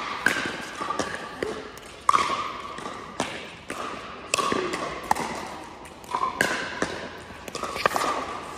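Pickleball doubles rally: irregular sharp pops of paddles striking the hollow plastic ball and the ball bouncing on the hard court, about a dozen hits, each echoing in a large hall.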